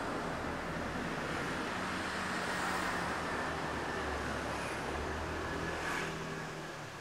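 Road traffic: a car's low engine hum over road noise, dropping away about six seconds in.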